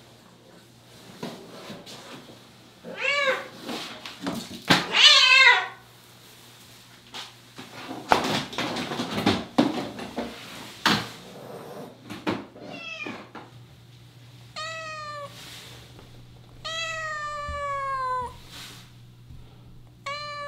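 Domestic cat meowing repeatedly with short calls that rise and fall in pitch. The loudest and shrillest comes about five seconds in, and a long, drawn-out falling meow comes near the end. A noisy stretch of rustling and knocks sits between the meows.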